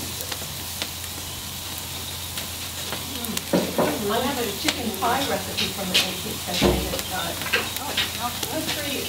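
Beaver tail and meat sizzling on an iron gridiron over an open wood fire, with scattered sharp clicks of metal tongs on the grate and a single dull thump near the end. Faint voices can be heard in the background during the second half.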